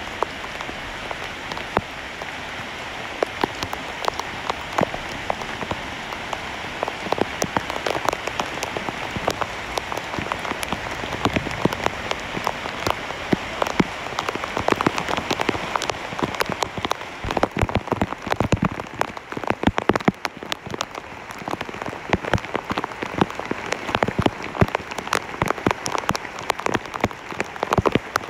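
Heavy rain falling on broad plant leaves: a steady hiss of rain with many sharp individual drop strikes, the strikes growing thicker from about halfway through.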